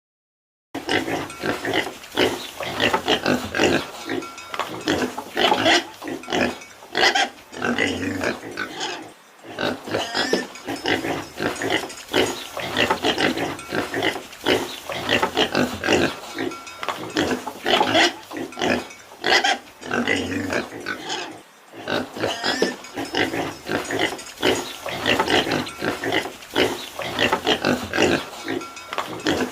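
Pigs grunting and oinking, a dense run of short, irregular grunts starting about a second in, with a couple of brief lulls.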